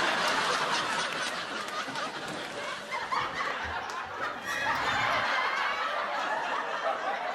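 Sitcom laugh track: a recorded audience laughing and chuckling.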